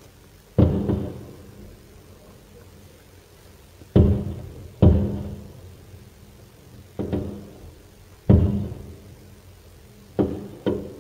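Aerial firework shells bursting overhead: seven deep booms at uneven spacing, each trailing off in a rumbling echo over about a second, heard through a smartphone microphone.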